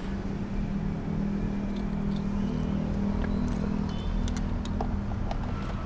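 Toyota Rush's four-cylinder engine idling, heard from inside the cabin as a steady low hum. A few light clicks and rattles sound over it through the middle of the stretch.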